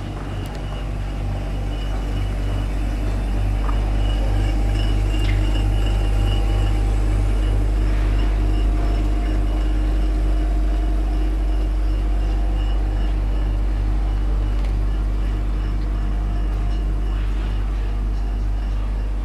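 Steady low rumble with a faint hum over it, swelling over the first few seconds and then holding, with a few faint clicks.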